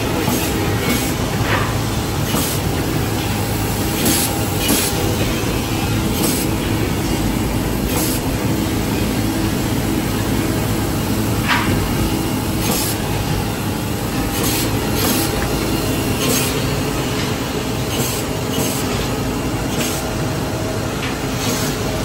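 Woodmaster CNC chalk-mark defect-cutting saw and surrounding woodworking machinery running: a steady loud mechanical din with short sharp clacks and hisses at irregular intervals, about one a second.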